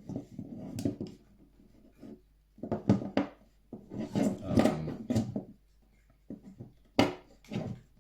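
Two folding multitools, a Daicamping DL30 and a Leatherman Wave, being handled: irregular rubbing and scraping in bursts, then two sharp knocks near the end.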